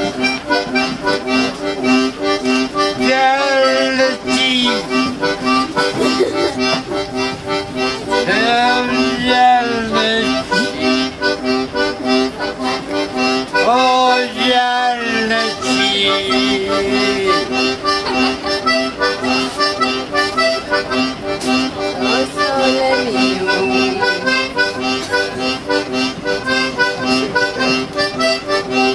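A busker playing live music: a lively tune over a steady, evenly repeating bass-and-chord pulse.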